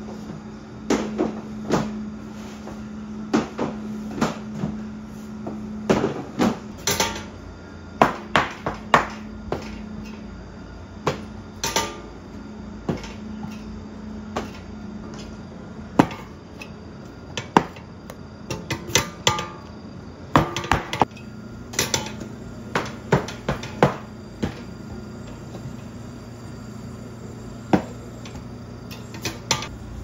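Irregular sharp knocks and clacks of hard kitchen objects, such as utensils, trays and tools, being handled and set down during bakery work. They come in scattered clusters over a steady machine hum, which a second, lower hum joins about two-thirds of the way through.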